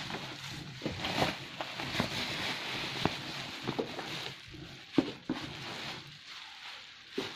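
Black plastic bubble wrap crinkling and rustling as it is handled and pulled at, with scattered sharp crackles and snaps, the loudest about five seconds in.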